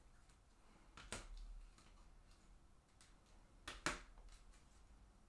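Faint handling of plastic-sleeved trading cards: a sharp click about a second in and a quick pair of clicks near four seconds, with near silence between.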